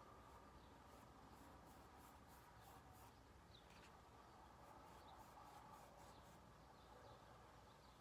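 Faint swishing of a flat paintbrush dragging acrylic paint across a stretched canvas in long strokes, a quick run of short strokes in the first few seconds and a few more later, over a low room hum.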